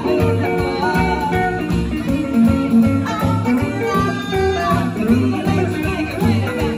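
Live band playing a song: upright double bass keeping a steady pulse under drums, acoustic guitar and electric hollow-body guitar.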